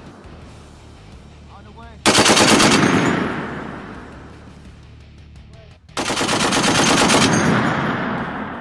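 M2 .50 calibre heavy machine gun firing two short bursts about four seconds apart, the second a little longer, each shot rapid and even and each burst trailing off in a long echo.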